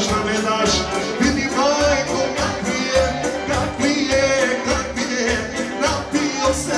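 Live Bosnian folk-pop music through a PA system: a man singing into a microphone over band accompaniment with a steady beat.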